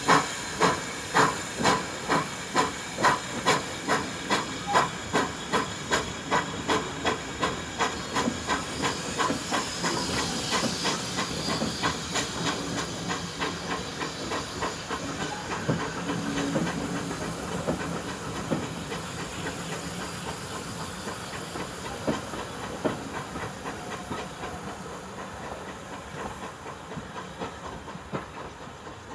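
Steam locomotive pulling away, its exhaust beating evenly at about two and a half chuffs a second. The beats fade into a steady hiss and rumble that dies away as the train draws off.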